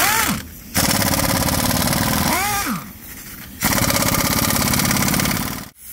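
Pneumatic impact wrench rattling on a car's wheel nuts in two bursts of about two seconds each, with a short rising-and-falling whine in the gaps between them.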